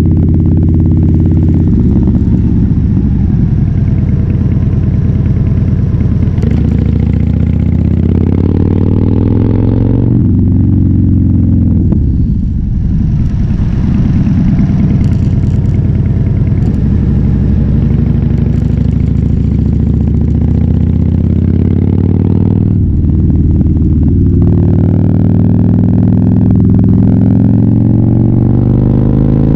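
Harley-Davidson Fat Bob's V-twin through a KessTech ESM3 exhaust, pulling through the gears under load. Its pitch climbs and then drops at an upshift about a third of the way in, falls off briefly just after, and drops again at another shift about three-quarters of the way through before rising once more near the end.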